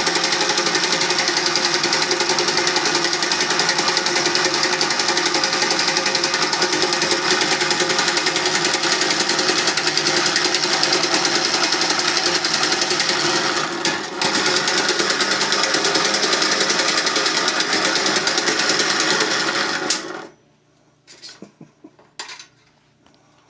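LePage toy electric boat's motor running with a loud, rapid, steady mechanical rattle. It dips briefly about 14 seconds in, then cuts off suddenly about 20 seconds in, followed by a few faint knocks.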